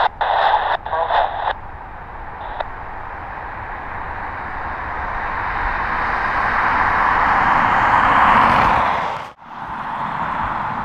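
A short burst of airband radio chatter, then the steady rushing noise of a Boeing 777-300's jet engines as it taxis, swelling to a peak about eight seconds in and breaking off suddenly just after.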